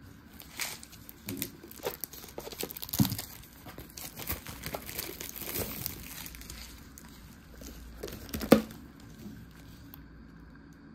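Plastic packaging crinkling and tearing as a convenience-store ramen is unwrapped, with irregular crackles and two sharper snaps, about three seconds in and after about eight seconds.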